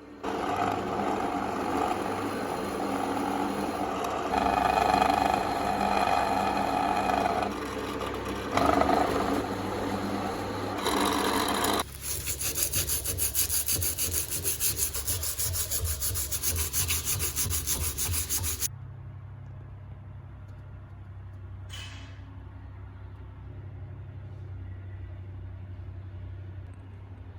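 Power tools working wood. A machine runs with a rough rubbing noise, then a bit under halfway through it changes to a fast, even stroking rasp. That stops suddenly about two-thirds of the way in, leaving a quieter low hum.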